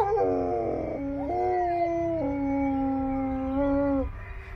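A long-haired German shepherd howling: one long howl that steps between pitches and then holds a steady note for a couple of seconds, tailing off about four seconds in, with a new howl starting right at the end.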